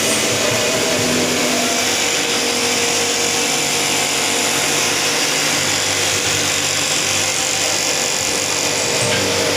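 Woodworking power tool running steadily with a continuous hiss.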